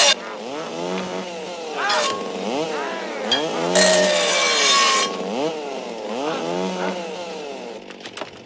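Chainsaws revving up and falling back again and again in quick succession, with several loud, harsh hissing bursts about two seconds apart, the longest lasting about a second.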